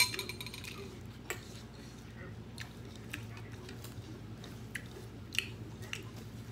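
Eating sounds: chewing and scattered light clicks of a ceramic soup spoon and bowls, opening with one sharp ringing clink.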